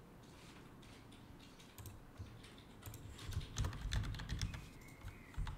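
Typing on a computer keyboard: a quick run of keystrokes starting about two seconds in, after a quiet start.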